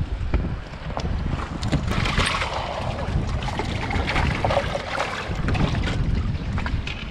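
Wind buffeting the microphone aboard a fishing boat, a steady gusting rumble with a few small clicks and knocks scattered through it.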